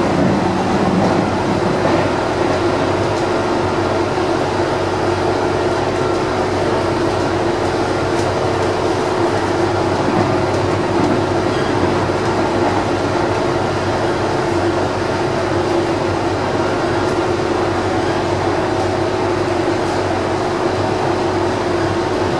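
Rome Metro Line C train running steadily along the track, heard from inside the front car: an even running and rail noise with a constant hum.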